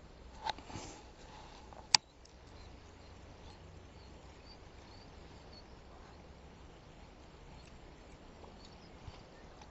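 A few soft knocks, then one sharp click about two seconds in, over a faint steady outdoor background.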